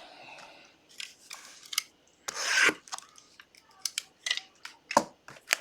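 A sealed trading-card box being opened by hand: a string of short scraping and rustling sounds of plastic wrap and cardboard, the longest about two and a half seconds in.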